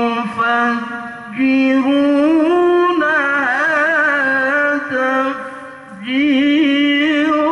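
A male qari reciting the Quran in melodic tilawah style into a microphone over a PA system, with long, ornamented held notes that waver in pitch. One phrase ends about a second in, a long phrase follows, and a new one begins near the end.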